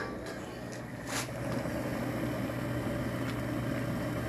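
Propane jet burner burning steadily under a boiling pot: a continuous rushing hum that gets louder just after a click about a second in.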